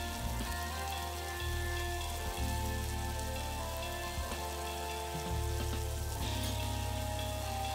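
Chicken pieces and cubes of butter sizzling in a hot skillet, a steady fine crackle, under soft background music with held notes and a deep bass.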